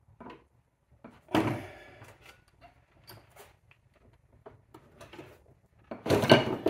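A hand-pumped hydraulic porta power spreading a bent trunk lid hinge clamped in a vise: small clicks as the pump is worked, and two loud clunks, one about a second and a half in and a louder one near the end.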